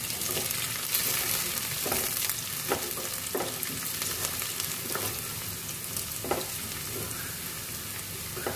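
Chopped onion, curry leaves and green chilli sizzling steadily in hot oil in a stainless steel pan, with a spatula scraping and knocking against the pan every second or so as it is stirred. The onion is being fried toward light brown.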